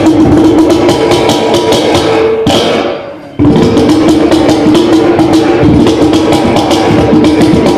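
Mizhavu, the large copper pot drum of Kerala temple theatre, played with the hands in a fast, dense run of strokes over a steady ringing tone. The sound fades away about two and a half seconds in and comes back suddenly about a second later.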